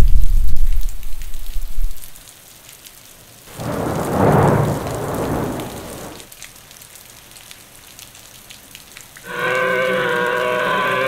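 Thunderstorm sound effects: rain hiss throughout, a loud low thunder boom fading over the first two seconds and a second roll of thunder about four seconds in. From about nine seconds a long, steady pitched cry with several tones sets in and holds.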